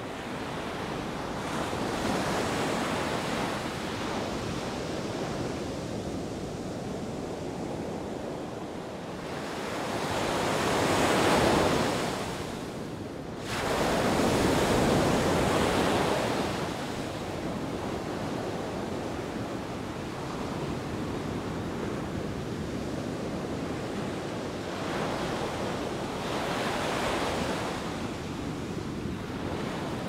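Sea surf breaking on a beach: a steady wash of waves with several louder surges, the biggest about ten to sixteen seconds in, and a smaller one near the end.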